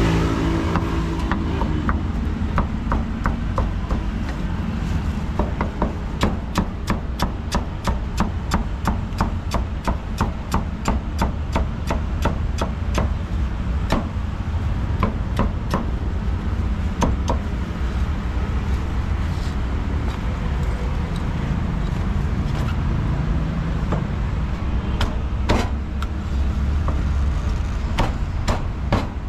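Heavy cleaver chopping through roast pork belly and then roast duck onto a wooden chopping board, in quick runs of even knocks with short pauses between runs. A steady low rumble of street traffic runs underneath.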